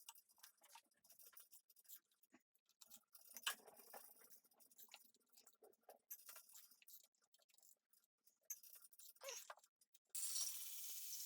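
Faint, scattered small clicks and clinks of hand tools and parts being handled, with a short hiss about a second before the end.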